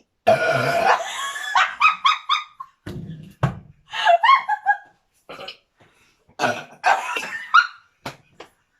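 A person burps loudly and at length near the start, after gulping carbonated cola, followed by bursts of laughter.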